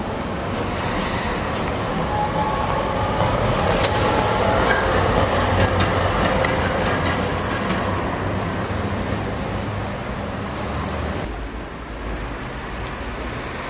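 Electric street tram passing close by: a steady rumble of steel wheels on street rails with a whining tone and a few clicks as the wheels cross rail joints. A little after eleven seconds in the sound drops to quieter street traffic.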